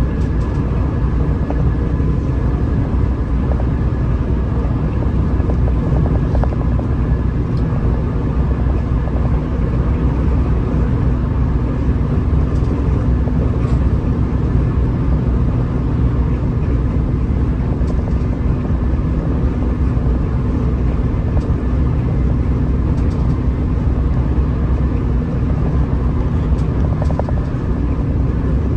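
Hino RM 280 bus running steadily at cruising speed, a continuous low engine drone with road rumble that holds even, with no change in revs.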